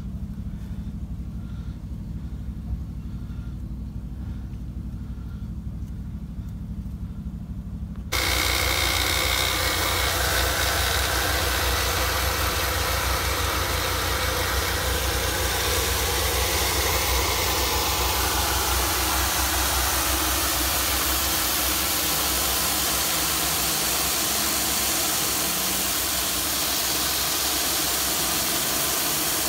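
A high-pressure water jetter's engine running steadily, then, about eight seconds in, the jet opens with a sudden loud, steady hiss as water sprays from the hose nozzle inside a rusted 4-inch cast iron drain pipe, scouring out the rust scale. The engine hum carries on under the hiss.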